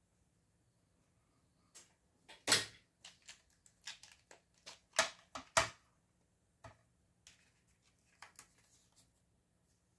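Irregular clicks and knocks of small hard objects being handled, about a dozen. The loudest come about two and a half, five and five and a half seconds in.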